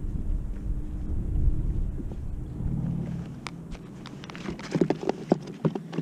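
Wind rumbling on the microphone, fading out a little before the end. From about halfway through comes a quick run of sharp clicks and knocks.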